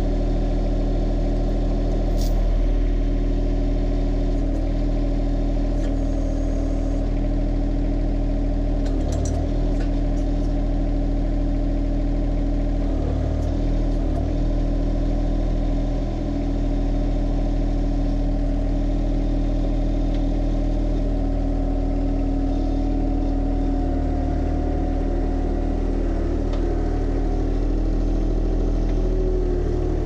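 The three-cylinder diesel engine of a John Deere 1025R compact tractor running steadily. There are a few light clinks, probably from the chain being wrapped around the post, at about 2, 9 and 13 seconds in.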